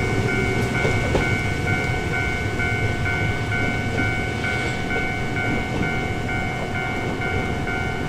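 Fukui Railway type 735 'Retram' tram pulling away down the line with a low, steady rumble. Over it, a warning signal sounds a repeating tone in a steady beat of about three pulses a second.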